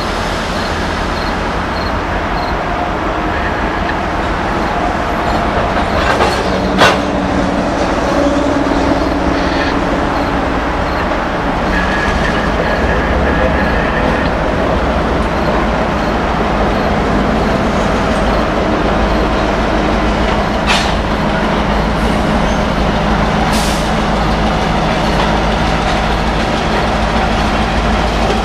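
Norfolk Southern diesel freight locomotive running as it rolls slowly past with its train, a steady loud engine rumble over wheel and car noise. Three sharp clanks stand out: about 7 seconds in, about 21 seconds in, and about 23 seconds in.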